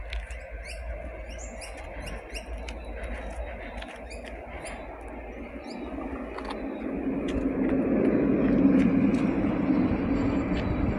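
An approaching train's running rumble, growing louder over the second half and loudest about three quarters of the way through. Short high chirps sound in the first half.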